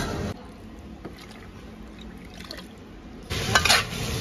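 Shredded potato hitting hot oil in a wok and sizzling as it is stir-fried, with a few clinks, starting about three seconds in after a quiet stretch with faint ticks.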